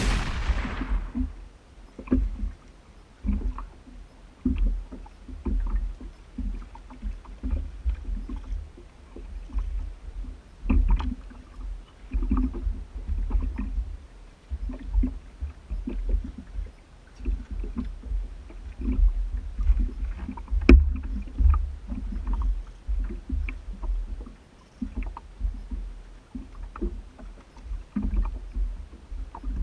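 Water slapping against a small boat's hull, with irregular low thumps and occasional light knocks.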